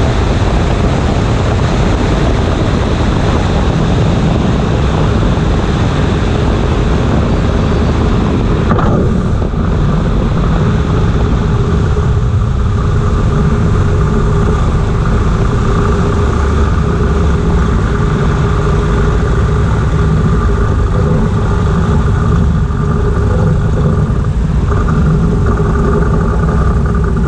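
Single-engine light taildragger on landing: heavy wind rush over the wing with the piston engine throttled back, then the rush drops off sharply about nine seconds in as the plane settles onto the runway. The engine is then heard idling with a steady hum through the rollout.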